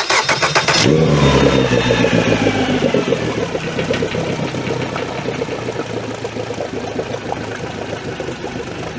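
Outboard motor cranked by its starter, catching about a second in, then running at a fast idle that slowly settles.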